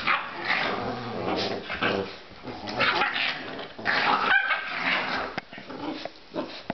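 American Staffordshire Terrier puppies play-fighting, growling and yipping, with scuffling on the blanket; a short higher yelp a little past the middle.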